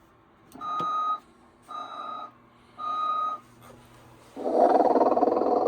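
Three short steady electronic beeps about a second apart, then a long, loud, noisy snore from a 1992 Telco Motion-ettes Sleeping Santa animated figure, starting about four and a half seconds in.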